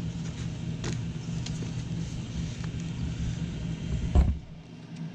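Steady electric hum of a Molex bench crimper running idle, with a few faint clicks and a single low thump about four seconds in.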